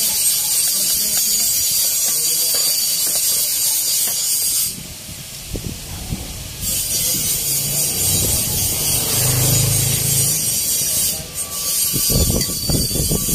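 A hand tool scraping a steel cylinder liner from an Isuzu 4BC2 diesel engine, giving a steady rasping hiss that stops briefly about five seconds in. A cluster of metal knocks comes near the end.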